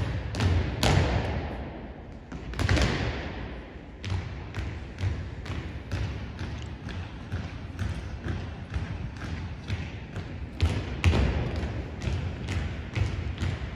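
Drill squad's boots marching in step on a hardwood gym floor, about two footfalls a second, echoing in the hall. Louder unison stamps ring out about a second in, just before three seconds and near eleven seconds.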